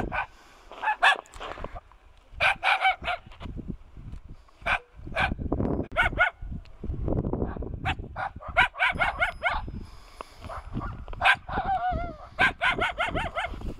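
Dog barking in quick runs of short barks, over and over, with a low rumble underneath.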